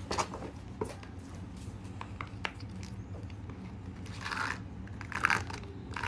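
Handling noise from silicone pop-it fidget toys and a cardboard box: light rubbing and scraping with scattered small clicks, and a couple of longer rustles near the end as a large rainbow pop-it is lifted out.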